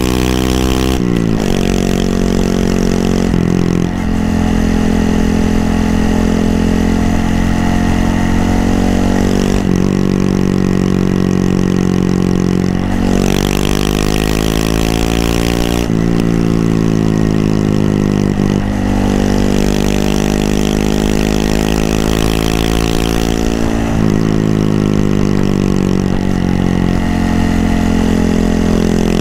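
Honda Monkey 125's single-cylinder engine under way, its pitch rising several times as it accelerates and dropping suddenly at each gear change, with stretches where it falls away as the bike slows.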